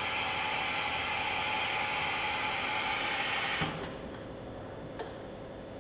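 Air hissing steadily during an automatic tool change on a Supermax YCM V105A vertical machining center with a 20-station tool changer. The hiss cuts off sharply about two-thirds of the way through, and a single sharp click follows about a second later.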